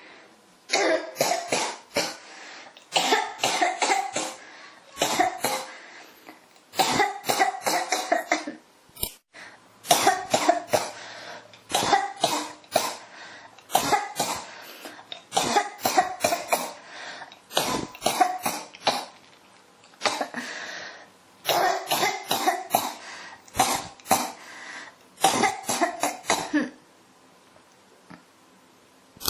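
A person coughing in repeated fits that won't stop: clusters of several sharp coughs every second or two, with short breaths between. The coughing stops a few seconds before the end.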